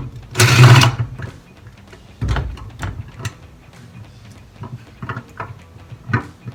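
Handling noises from working on a microwave's turntable drive motor mount: scattered clicks and plastic rattles, a loud scraping rustle about half a second in, and a low thud around two seconds in.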